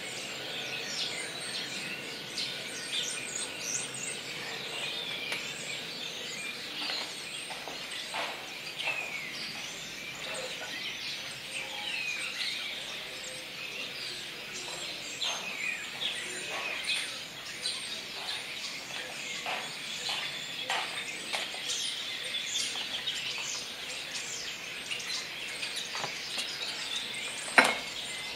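Common starlings chattering: a continuous mix of overlapping whistles, sliding notes, chirps and clicks from several birds. A single sharp click stands out near the end.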